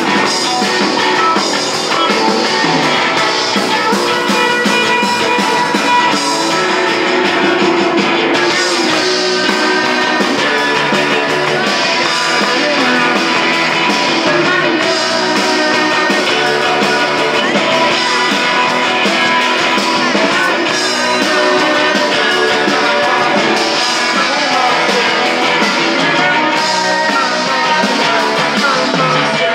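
Live garage/surf rock trio playing loudly and without a break: electric guitar, electric bass and drum kit, with a sung vocal.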